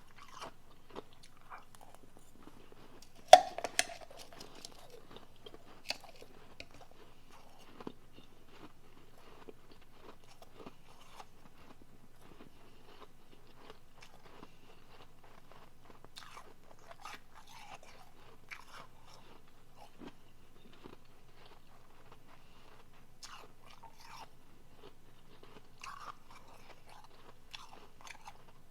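Close-up chewing of soft, refrozen powdery blender ice: one loud, sharp bite a little over three seconds in, then steady soft crunching with scattered small crackles.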